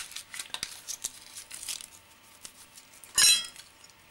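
Dry onion skin being peeled off by hand, crackling and tearing, with faint clicks and clinks against a ceramic plate and knife; one louder tearing rustle a little after three seconds in.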